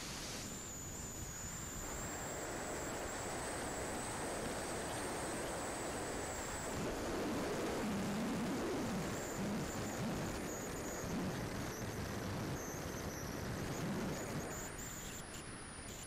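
Radio-controlled model aeroplane in flight, heard from its own onboard camera: a steady rush of air with a thin high motor whine that drifts slowly up and down in pitch.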